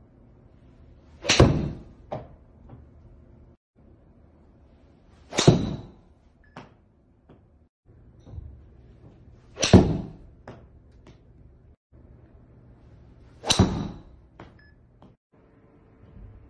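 Four golf iron shots, each a sharp crack of the clubface striking the ball, about four seconds apart, each followed by a few fainter knocks.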